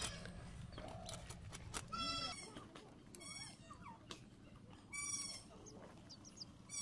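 Farm animals calling: short, high cries with a bleating quality, repeating every second or two over faint background noise.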